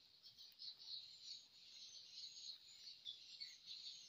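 Faint, dense chorus of high-pitched chirping from birds and insects, with short calls overlapping continuously and a few gliding notes.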